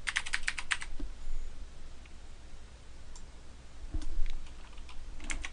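Computer keyboard being typed on: a quick run of about eight keystrokes, then a few scattered single clicks.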